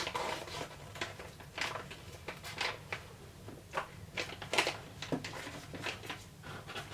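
Scattered crinkles and clicks of a plastic beef jerky bag being handled and opened.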